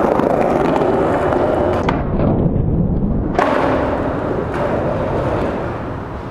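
Skateboard wheels rolling over paving, a loud steady rumble, with a click about two seconds in and a sharp clack about three and a half seconds in before the rolling carries on and slowly fades.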